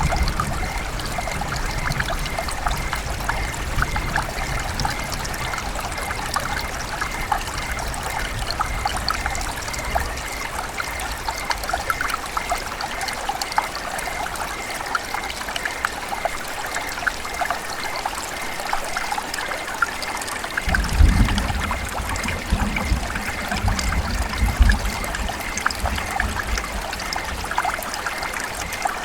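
River water running and trickling in a steady babble. A low rumble joins about two-thirds of the way in.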